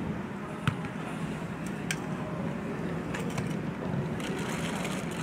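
Steady low background hum, with a sharp knock of a football being struck about a second in and a fainter one about two seconds in.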